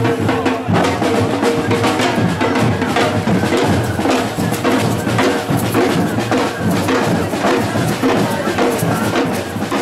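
Marching band drums, bass and snare, beating continuously as the procession passes, with crowd voices mixed in.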